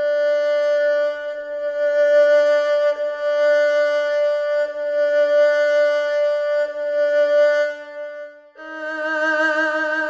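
Sampled erhu from Sonuscore's Ethnic String Phrases Kontakt library playing a long held bowed note, briefly broken and restarted several times. About eight and a half seconds in it moves to a slightly higher note with a wide vibrato.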